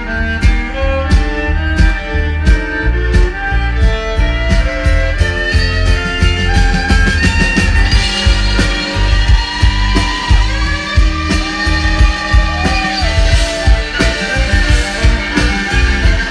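Live band music with a steady drum beat, guitar and a bowed fiddle line that slides between notes about ten seconds in.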